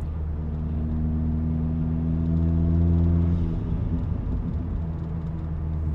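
VW Golf R MK7.5's turbocharged 2.0-litre four-cylinder engine running steadily, heard inside the cabin. Its drone builds a little, then fades and breaks up unevenly about three and a half seconds in before settling.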